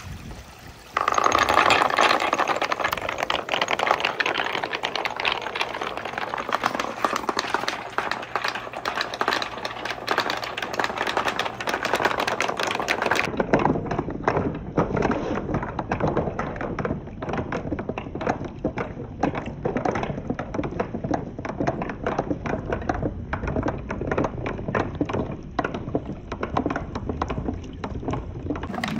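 Marbles clicking and rattling down a wooden water marble run amid running water: a dense stream of small knocks that never lets up. It changes abruptly about 13 seconds in, at a cut to another stretch of the run.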